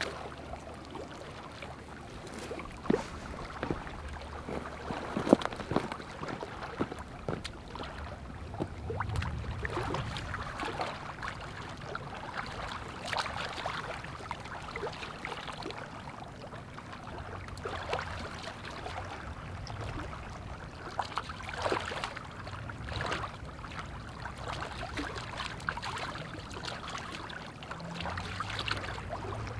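A knife cleaning out a freshly butterflied bass: irregular scraping and small knocks, coming in short runs throughout.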